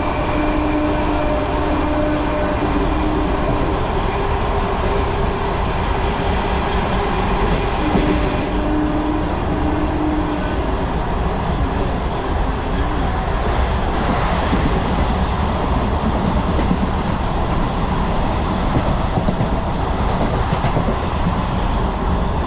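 Electric multiple unit (EMU) local train running at about 90 km/h, heard from inside at its open doorway: a loud, steady rumble of wheels on rail.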